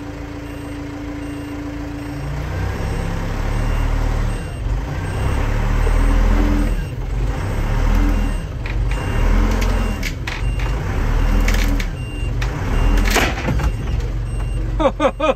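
Tractor engine under load, its revs rising and falling about every one and a half seconds as it reverses and slackens against a strap tied to a truck with a seized engine, rocking it back and forth. A steady warning beep sounds for the first two seconds, and there are sharp cracks near the end.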